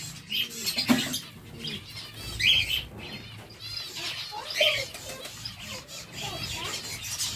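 A flock of zebra finches calling: repeated short chirps, with a few louder calls standing out over the steady chatter.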